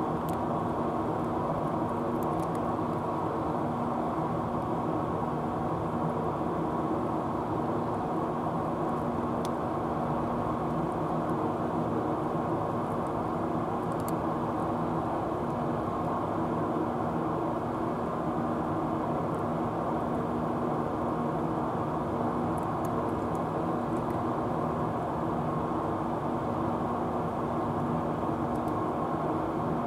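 A steady mechanical drone made of several held tones over a hiss, with a few faint ticks.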